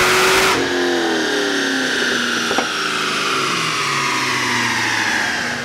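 Cadillac CTS-V's supercharged 6.2-litre V8 at the end of a wide-open-throttle dyno pull. The throttle closes about half a second in, and the engine and the supercharger whine wind down together, falling in pitch as the car coasts down. There is a single click about halfway through.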